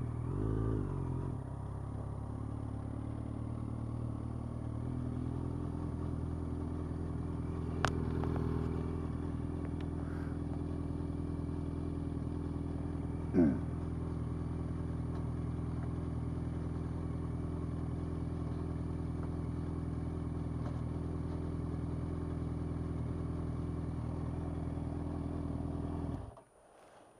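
Yamaha FZ8's inline-four engine idling steadily after a brief rise in revs about half a second in. There is a sharp click around eight seconds and a short falling chirp around thirteen seconds, and the engine stops suddenly about a second before the end.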